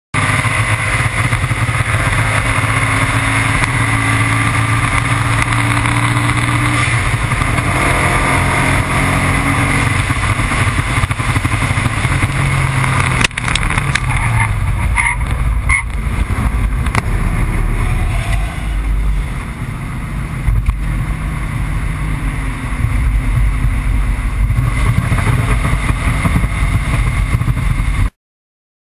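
Onboard sound of a car at full throttle on a race track: its engine note climbing steadily under heavy wind noise. About 13 seconds in, as the Mitsubishi 3000GT ahead sends a connecting rod through its oil pan, a sharp crack is followed by a few seconds of scattered ticks and clicks of debris, and the engine note drops lower as the car backs off.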